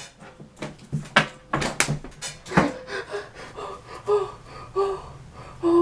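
A man laughing hard, wheezing and gasping for breath in short bursts. The sharpest gasps come in the first three seconds, then come shorter, higher bursts about once a second.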